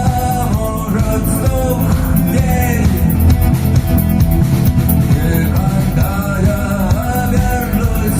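Live rock band playing, with a singer, electric guitar, bass and drums.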